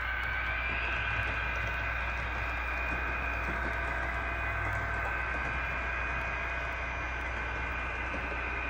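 Battery-powered HO scale model diesel locomotives running on the track: a steady whine over a low hum, the whine rising slightly in pitch about half a second in.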